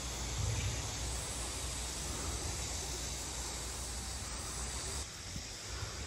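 Steady outdoor ambience: an even hiss over a low rumble, dropping slightly about five seconds in.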